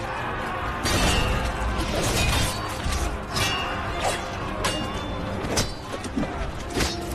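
Battle-scene sound effects: a string of sharp clashes of weapons striking, about one or two a second, over background music.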